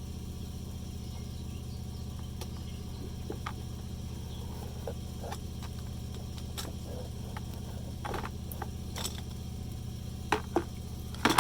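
Scattered light clicks and taps of fuel pump assembly parts being handled as a fuel tube and electrical connector are worked loose, with a few sharper knocks near the end. A steady low hum runs underneath.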